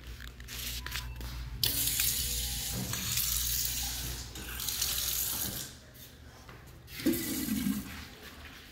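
Bathroom sink faucet running water into the basin, starting about a second and a half in and stopping about six seconds in. A short, loud thump follows about seven seconds in.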